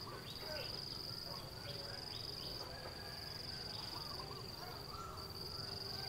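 Insect trilling steadily at a high pitch, typical of a cricket, breaking off briefly every second or two, with faint chirping calls underneath.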